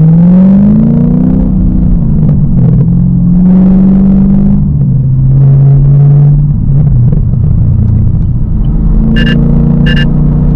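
Gen 6 Camaro SS's 6.2-litre V8 running through an exhaust with the secondary catalytic converters deleted: it revs up hard over the first second and a half, then holds steady engine speeds, its pitch dropping at each upshift. Three short high beeps near the end.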